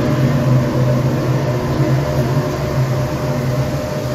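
Gas-fired animal-carcass incinerator running: a steady low hum from its burners and blowers while the electric hoist lowers the furnace door over the firing chamber.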